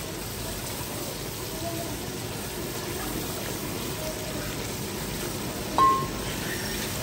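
Steady hiss of a pot of water heating on a gas stove, coming up to the boil for the rice, with a short clink about six seconds in.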